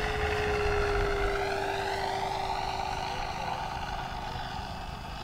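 Electric brushless motor and four-bladed propeller of an FMS F4U Corsair RC scale model in flight: a steady whine that drops slightly in pitch and fades as the model flies past and away.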